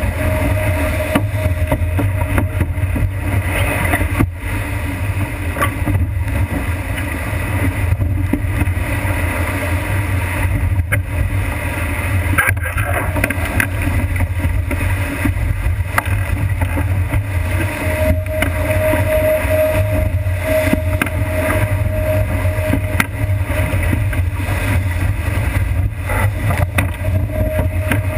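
Wind buffeting a deck-mounted camera on a sailboat driving hard through rough water, with a heavy low rumble, water rushing past the hull and spray slapping the camera. A thin whistle comes and goes.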